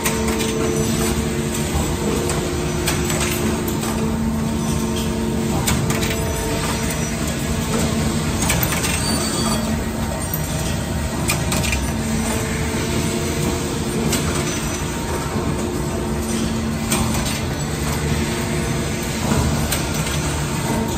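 Automated engine bearing production machinery running: a steady mechanical din with a constant hum, and scattered sharp clicks and clacks from the feeders and air-cylinder actuators.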